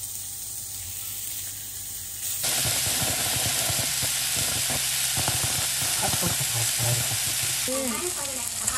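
Seasoned pork belly sizzling in a dry stainless-steel frying pan. About two and a half seconds in the sound turns suddenly louder into a dense, steady hiss with crackling, as a butane kitchen torch is played over the meat.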